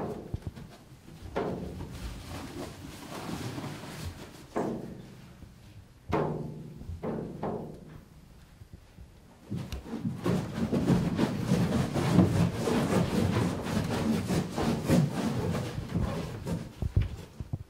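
Live theatre percussion: several separate drum strikes that ring and die away, then from about halfway a loud, dense drum rumble that stops just before the end.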